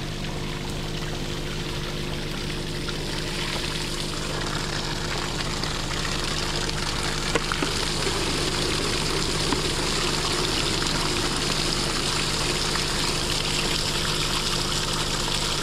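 Spring water pouring and running steadily, with a steady low hum underneath.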